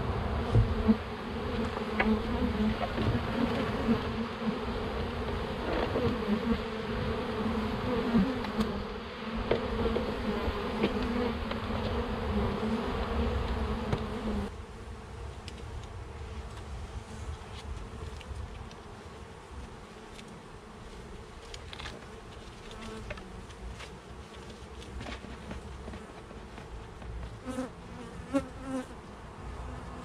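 Many honeybees flying around a hive opened for inspection, a dense steady buzz. It is loud for about the first half, then drops suddenly to a fainter buzz, with a few light clicks near the end.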